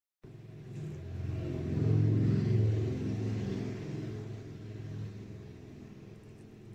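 Low engine rumble that swells to its loudest about two seconds in, then slowly fades, like a motor vehicle passing.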